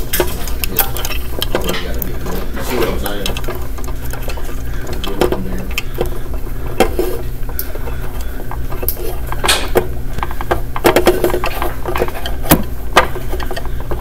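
Wires and a plastic wire nut being handled in a steel electrical box: scattered clicks, taps and rattles, with a few sharper clicks near the end, over a steady low hum.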